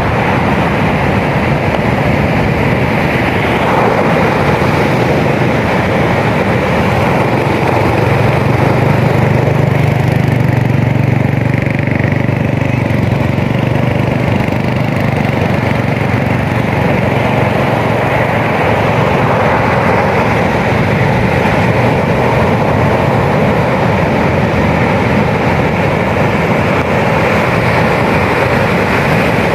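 Ocean surf roaring steadily, a constant loud rush of breaking waves. A low hum swells in the middle and fades again.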